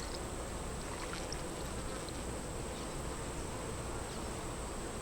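Honey bees buzzing in a steady drone around an open hive.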